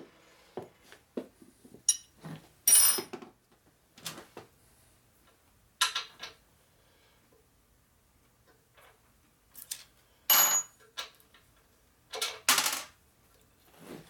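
Steel hand tools clinking on a steel workbench as they are picked up and set down: a scattering of sharp metal clinks with quiet gaps between, a few of them ringing briefly.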